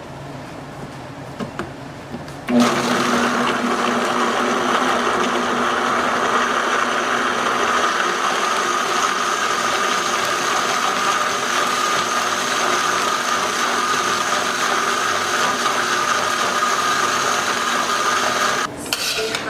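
Blender running steadily, puréeing tomatoes, onion and garlic with a little water. It starts abruptly a couple of seconds in and cuts off near the end.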